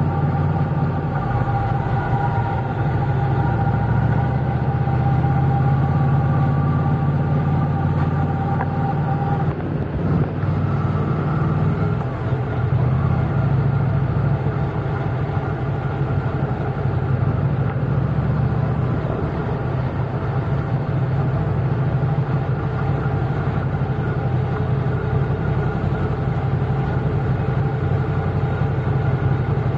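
Motorcycle engine running steadily under way, with road and traffic noise. A steady higher whine over the engine cuts off abruptly about ten seconds in.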